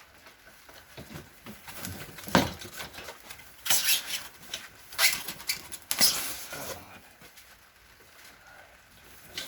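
Packing material in a box being handled and pulled out: short, irregular bursts of rustling and scraping, about five louder ones, with quieter handling noise between.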